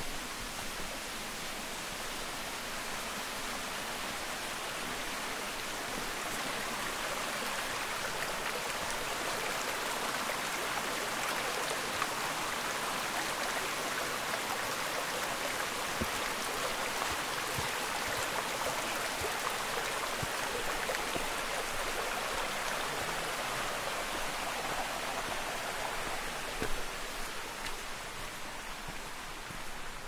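Steady rushing of a mountain stream beside the trail, growing louder through the middle and easing off near the end.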